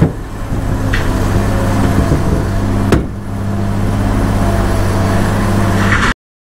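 Truck engine running steadily, with a few sharp clunks about a second in and again near three seconds. It stops abruptly near the end.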